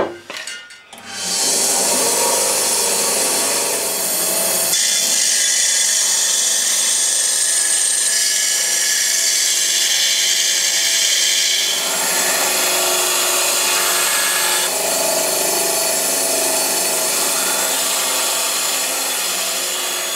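Small benchtop bandsaw cutting through a thin aluminium sheet: a steady, loud sawing noise that starts about a second in and shifts in tone a few times as the cut goes on.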